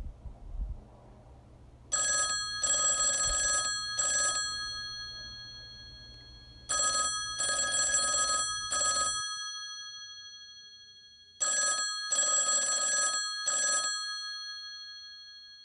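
Telephone ringing: three rings about five seconds apart, each a short-long-short group of bright pulses whose tone lingers and fades away before the next ring. A couple of soft knocks sound right at the start.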